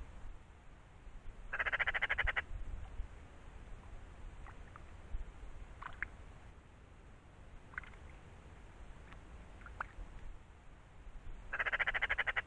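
Eurasian magpie giving its harsh rattling chatter twice, each rattle about a second long: one shortly after the start and one near the end. A few faint short chirps come in between.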